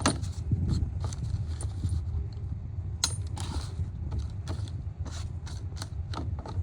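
Scattered clicks and light knocks of small items being handled and moved about in a toolbox drawer, over a steady low hum.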